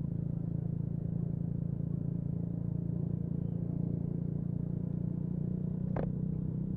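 Yamaha MT-125 motorcycle's single-cylinder engine running steadily at one even pitch. A short click is heard about six seconds in.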